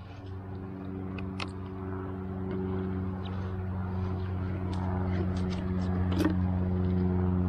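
An engine's steady drone, one held pitch growing gradually louder, with a few sharp clicks over it.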